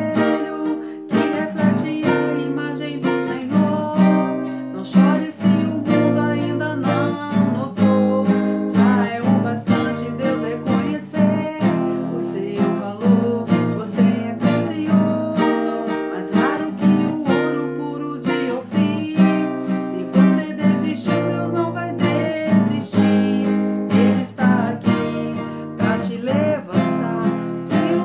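Nylon-string classical guitar played with the fingers, strumming and plucking chords in a steady rhythm.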